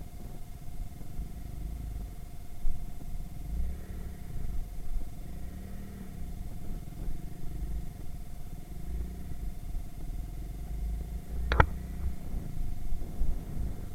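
Irbis Virago 110cc moped's single-cylinder four-stroke engine running on the move, its pitch rising and falling with the throttle over a low rumble. A single sharp click sounds near the end.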